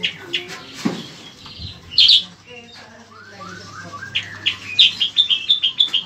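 Bayeman (cicak kurincang) songbird singing: scattered chirps, a loud high note about two seconds in, a short run of falling notes, then a fast string of sharp high chirps in the last two seconds.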